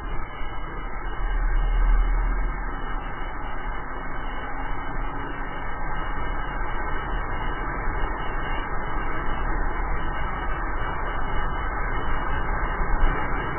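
Wind rushing over the camera microphone, mixed with the rumble of the drift trike's wheels rolling fast downhill on asphalt, with a brief louder bump near the end.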